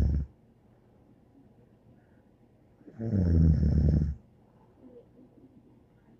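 Snoring in a regular rhythm. One low snore is just ending at the start, and a second low snore comes about three seconds in and lasts just over a second.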